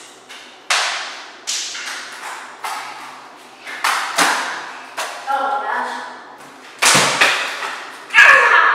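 Water balloons being thrown and splatting one after another on a wet hardwood floor and walls: about eight sharp smacks, each followed by a short wet hiss. Children shout in between.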